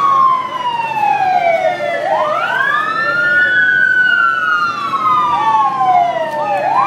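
Two or more police motorcycle sirens wailing out of step with each other. Each sweeps slowly down in pitch for about two seconds, then quickly back up, repeating every four to five seconds.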